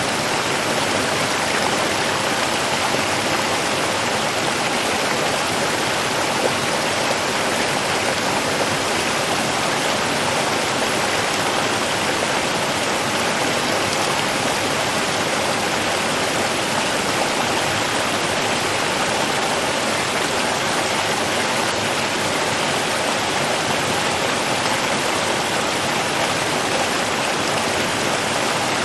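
Running water rushing steadily, an even hiss that does not change.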